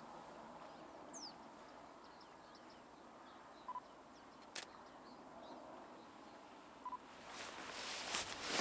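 Quiet rural dawn ambience with faint bird chirps, one sharp click about halfway through, and two brief beeps. Near the end, rustling of a padded jacket in the reeds rises as someone moves close to the microphone.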